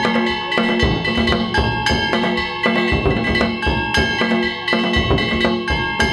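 Danjiri hayashi: taiko drums beaten in a fast, driving rhythm with hand-struck metal gongs (kane) clanging and ringing over them.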